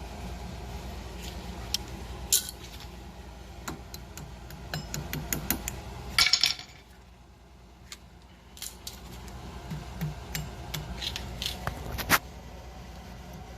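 Hand tools working a steel cotter pin out of a rear axle nut on a wheel hub: a run of light metallic clicks and clinks, with a louder burst of metal-on-metal clinking and scraping about six seconds in.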